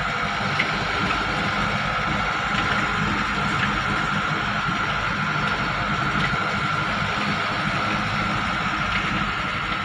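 Steady engine and road noise of a vehicle driving slowly, with a faint steady whine.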